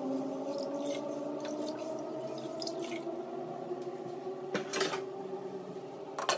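A ladle stirring liquid in a pot, with light knocks against the pot, then a glass lid set down on the pot with a clink near the end. A steady hum runs underneath.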